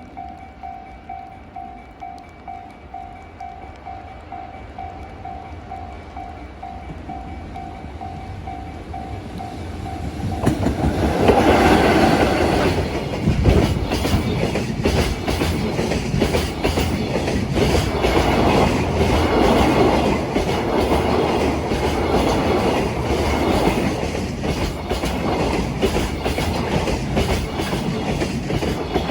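Japanese level-crossing warning bell ringing about twice a second. About ten seconds in a freight train runs past and drowns the bell, its wheels clattering over the rail joints in a fast run of clicks.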